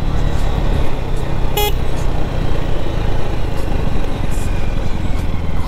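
KTM Duke 250's single-cylinder engine running steadily on the move, with wind and road noise. A short horn toot sounds about a second and a half in.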